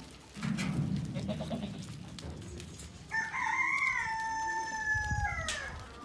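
A rooster crowing once, beginning about three seconds in: one long call of about two and a half seconds that rises, holds level, then falls away at the end. Before it, about half a second in, there is a low sound lasting about a second.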